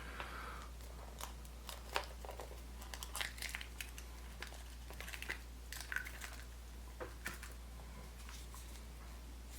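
Foil wrapper of a Kinder Surprise chocolate egg crinkling as it is handled and unwrapped, in scattered crackles that die away near the end, over a steady low hum.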